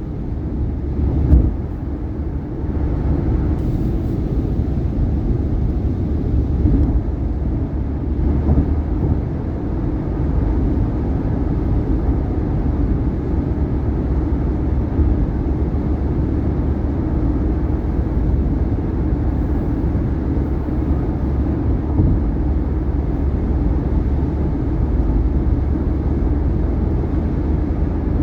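Steady tyre and road noise from a 2018 Subaru Outback cruising on an interstate highway, with a few short thumps as the tyres cross bridge expansion joints, the loudest about a second in.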